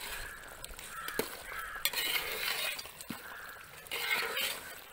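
Crows cawing several times, with a few sharp clinks of a ladle against a steel cooking pot as a thick chicken curry is stirred.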